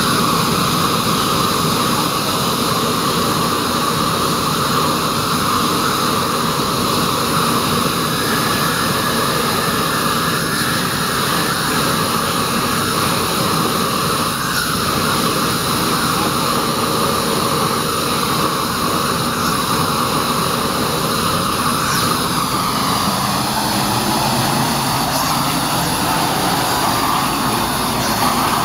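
Gas burner running steadily, its large flame rushing against a test panel in a loud, continuous noise.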